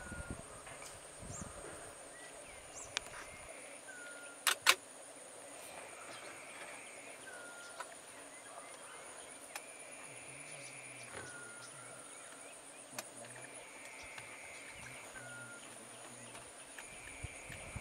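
Wetland ambience: a steady high insect drone, with a bird repeating a short call every couple of seconds. Two sharp knocks close together about four and a half seconds in are the loudest sounds.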